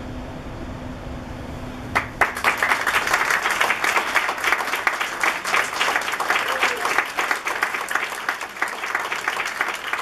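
Audience applauding, breaking out suddenly about two seconds in and continuing as a dense, steady clatter of many hands.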